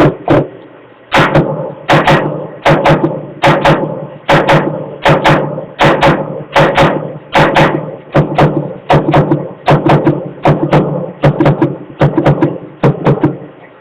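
A steady run of sharp knocks, about two a second, each ringing briefly at the same low pitch, with a short pause about half a second in.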